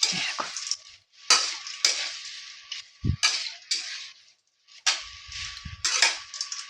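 A spatula scraping and stirring a thick mashed potato and vegetable filling in a hot kadai, in rough strokes about a second apart.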